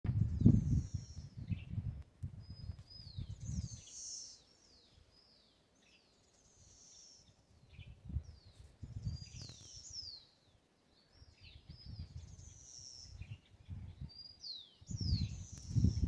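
Songbirds singing at dawn: short high sweeping and falling phrases repeated every second or two. A low, gusty rumble on the microphone comes and goes, loudest near the start and near the end.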